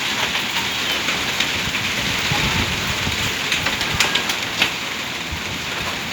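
Heavy rain falling steadily, with scattered sharp ticks of drops striking a hard surface, most of them about two thirds of the way through.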